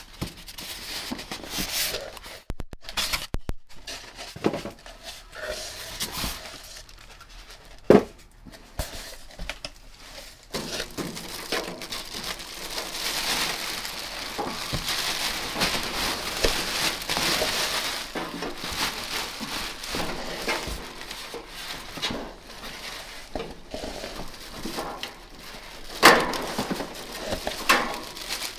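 Unpacking noise: a clear plastic bag crinkling and rustling as it is pulled off, with styrofoam packing and cardboard shuffling, thickest around the middle. A few sharp knocks stand out, the loudest about a third of the way in and near the end.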